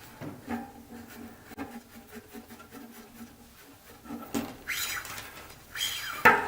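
Shock cord being fed through a fiberglass tent pole section by hand: soft rubbing at first, then a few scraping slides about four seconds in, and a sharp clack of the pole near the end.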